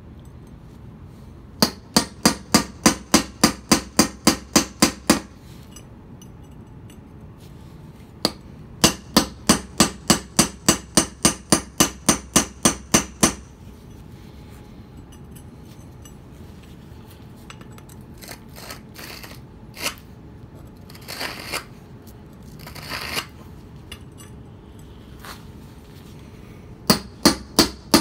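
Hammer blows on a mason's chisel cutting a paving stone, struck in fast runs of about four blows a second: one run of about fifteen strokes near the start, another through the middle, and a third starting near the end. A few quieter, irregular knocks and scrapes fall between the runs.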